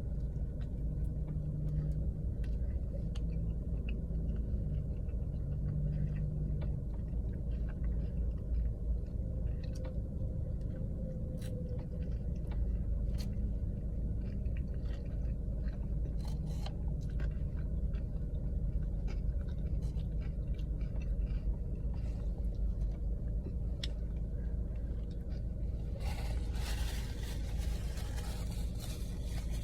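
Close-up chewing and mouth sounds of a person eating fast food, with scattered small clicks, over a steady low rumble. A brief rustle or scrape comes near the end.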